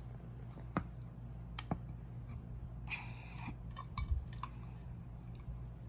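Slime being smushed and squeezed by hand, giving a few sharp clicks and pops and a short squishy rustle about three seconds in, over a low steady hum.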